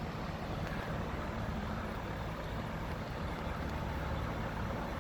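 A steady low engine drone that builds slightly over the first second or so, heard over the Allen + Roth Valdosta cage ceiling fan running on medium speed.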